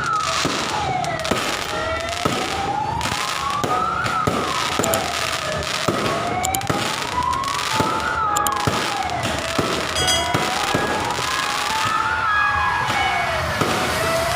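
New Year's fireworks going off in a dense run of bangs and crackles. A siren wails up and down under them, about once every four seconds.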